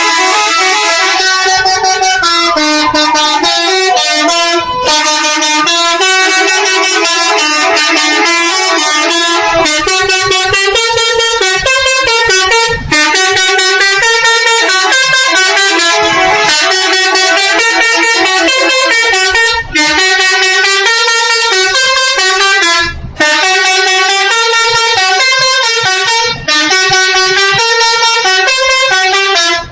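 Bus 'telolet' multi-tone air horn playing a loud, continuous melody of quickly changing notes. About two seconds in, one note slides downward, and the tune stops briefly a few times.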